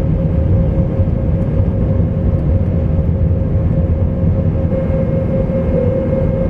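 Airbus A320 cabin noise in the climb, heard at a window seat over the wing: a steady deep rumble of engines and airflow with a constant droning tone.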